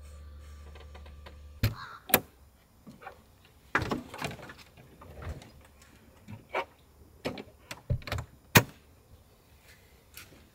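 Clunks and knocks of someone climbing down out of a truck camper: the camper door and feet on the rear metal step, a dozen sharp separate knocks with the loudest near the end. A low steady hum runs for the first second and a half and then cuts off.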